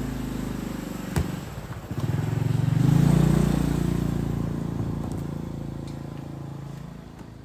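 A motor vehicle's engine passing close by, growing loudest about three seconds in and then fading away. There is a single sharp click about a second in.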